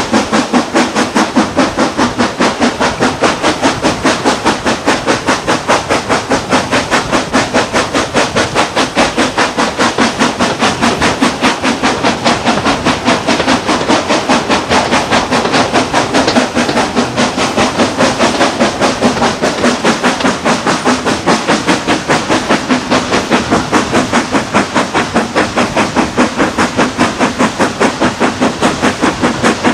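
Steam locomotive working hard, its exhaust beating a fast, even rhythm of about four beats a second over a constant hiss, heard from a carriage window close behind the engine.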